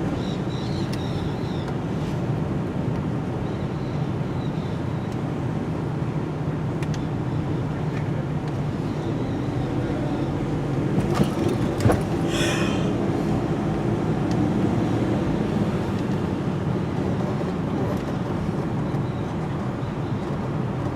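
Car driving, with steady engine and road noise. A few clicks and a short hiss come about eleven to twelve seconds in.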